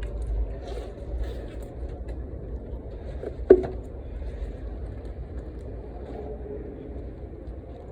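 Low, steady rumble of road traffic, with one short, sharp sound about three and a half seconds in.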